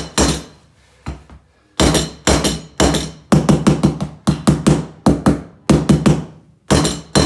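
Rapid hammer taps knocking luxury vinyl floor planks back together to close the seams: one strike at the start, a pause of about a second and a half, then a steady run of about four strikes a second.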